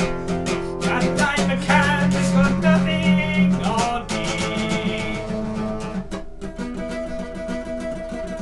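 Acoustic guitar strummed fast and steadily in an instrumental break of a song.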